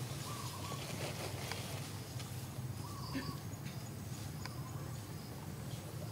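Outdoor ambience: a steady low hum with a few short chirping calls, about a third of a second in, again around three seconds in and near five seconds.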